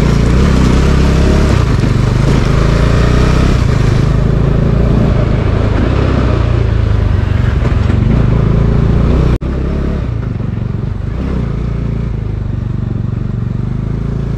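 Motorcycle engine running loud and steady, with a sudden brief drop in sound about nine seconds in before it carries on.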